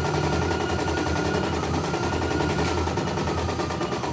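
CNY E900 computerised embroidery machine stitching a design, its needle clattering in a rapid, steady rhythm over a motor whine that dips briefly at the very end.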